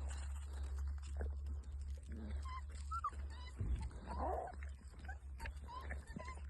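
Newborn Alabai (Central Asian Shepherd) puppies squeaking and whimpering in short, high cries, with one louder, longer cry just past the middle, over a steady low hum.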